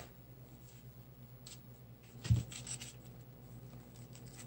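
Fingers handling a thin printed paper napkin and picking its layers apart: faint, scratchy paper rustling, with a soft thump a little past halfway and a few quick rustles just after it.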